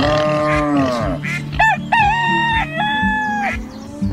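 Rooster crowing, a cock-a-doodle-doo in several held, stepped notes about halfway through, after a drawn-out arching animal call at the start. Background music with a steady beat runs underneath.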